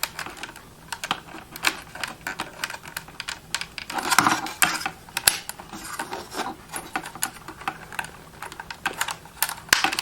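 Irregular clicks and taps of hard plastic and glass as a UV fluorescent tube is handled and pushed into its holder in an Accubanker D64 counterfeit detector. A louder rattling, scraping patch comes about four seconds in.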